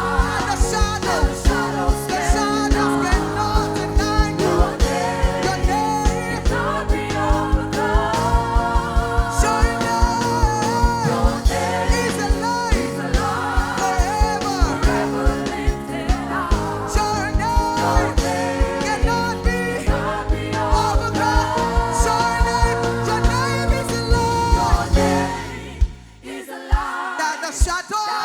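Gospel worship song: a singer's voice over a band with sustained chords and a steady drum beat. Near the end the band drops away and the music thins out abruptly.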